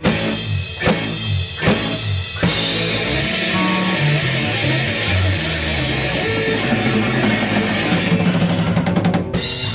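Rock band with drum kit, electric guitars and bass playing the closing bars of a song: a few separate drum hits, then a long sustained crash of cymbals and guitar over a moving bass line, with a fast drum roll near the end.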